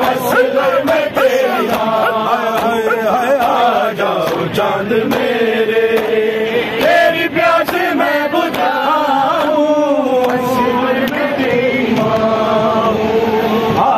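A crowd of mourners chanting a Shia noha lament together, holding long drawn-out notes.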